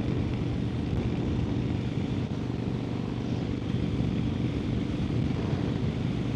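Harley-Davidson Sportster XL1200N's air-cooled V-twin running at steady cruising speed, with wind rushing over the microphone. The engine note holds steady, with no gear changes.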